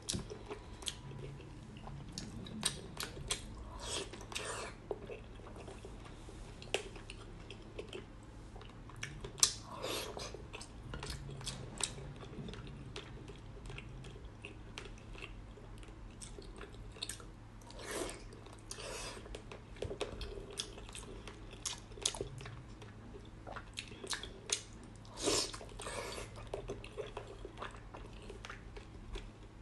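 Close-miked chewing and biting of braised pork belly, with irregular sharp mouth clicks throughout.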